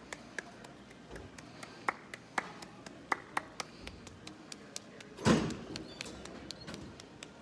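A person clapping slowly by hand, a string of sharp single claps at uneven spacing, with a brief vocal sound about five seconds in.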